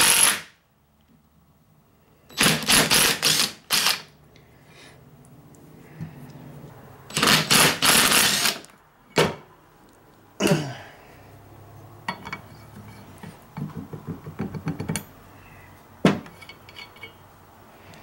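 Cordless DeWalt impact driver hammering in several short bursts, backing off the fasteners of a worn ball joint on a Ford/Lincoln front upper control arm. Lighter metal clicks and clinks follow as loose bolts and parts are handled.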